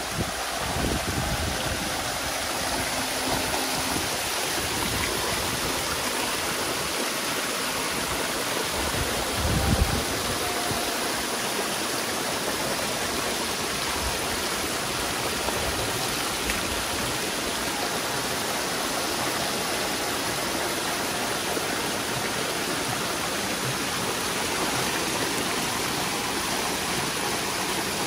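Steady rush and splash of water in a crowded concrete catfish tank: pipe inflow jets pouring in while a dense mass of hybrid magur catfish churns the surface. A brief low thump about ten seconds in.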